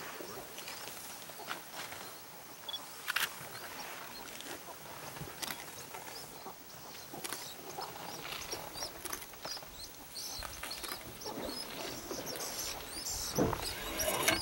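Open-air ambience with a light hiss, scattered clicks and knocks, and faint short high chirps in the second half. A louder, lower sound rises about a second before the end.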